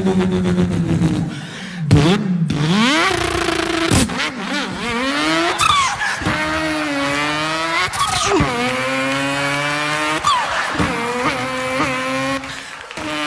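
A man's vocal impression of a V8 Holden Torana, made with his mouth into a microphone: the imitated engine revs up through the gears, its pitch climbing and dropping back again and again.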